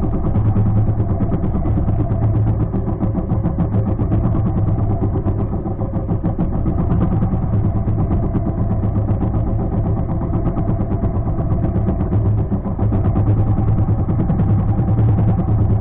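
Engine of a small outrigger fishing boat running steadily at an even speed, a low, constant drone with no change in pitch.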